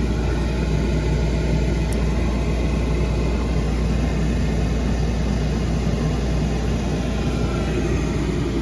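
Thermopride oil furnace's oil burner running steadily with a low rumble just after lighting off, firing now that the failed Beckett primary control has been replaced.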